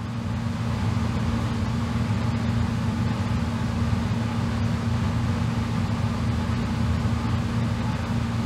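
Steady drone of a ShinMaywa US-2's Rolls-Royce AE2100 turboprop engines heard inside the cockpit: an even hum with a low tone and a higher tone above it, unchanging throughout.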